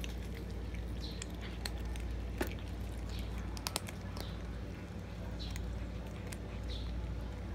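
Cats chewing tilapia, with irregular wet smacks and sharp little clicks over a steady low background hum.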